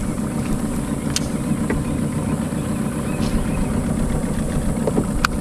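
A boat's outboard motor running steadily at idle, a low continuous rumble, with a couple of faint clicks over it.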